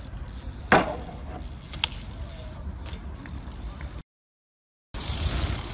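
A BMX bike coming down on the bench or pavement with one loud thud under a second in, followed by a few sharp metallic clicks from the bike. The sound then drops out completely for about a second and comes back as steady outdoor background noise.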